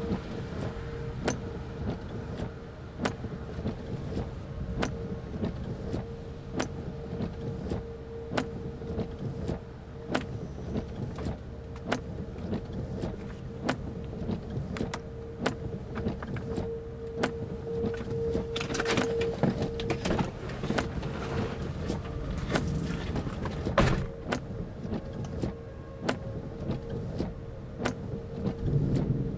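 Inside a car: a steady low vehicle rumble with a constant hum, and sharp clicks about once a second.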